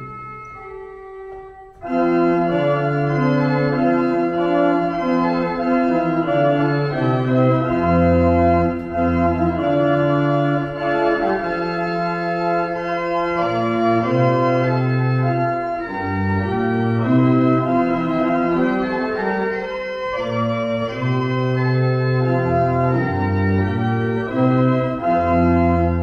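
Wegenstein pipe organ playing. A soft held note comes first, then about two seconds in the organ comes in loudly with many voices sounding together over a stepping bass line, and plays on without a break.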